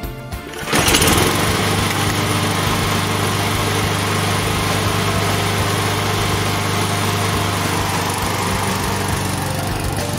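Walk-behind gasoline lawn mower being pull-started: the engine catches about a second in and then runs steadily for the rest of the time.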